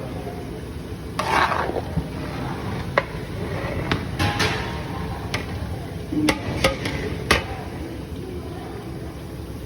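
A metal ladle stirring and scraping in a large cooking pot, with several sharp metal clinks, over a steady low kitchen noise.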